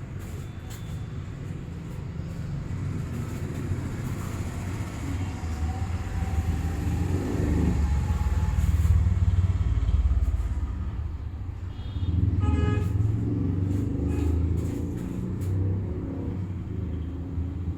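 Road traffic rumbling past, swelling loudest about halfway through, with a short vehicle horn toot about two-thirds of the way in.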